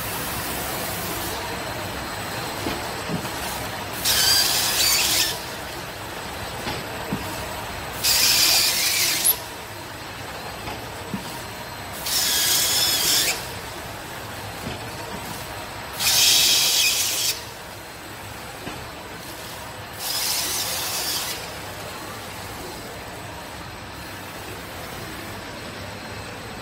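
A kitchen towel roll film-wrapping machine running steadily, with a loud hiss of air about every four seconds, five times, each lasting a little over a second.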